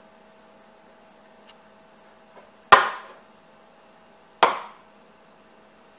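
Two sharp knocks about a second and a half apart, each with a short ringing tail, over a faint steady hum.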